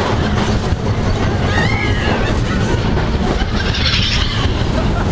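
Mine-train roller coaster running along its track at speed: a loud, steady rumble and rattle of the train heard from the open car.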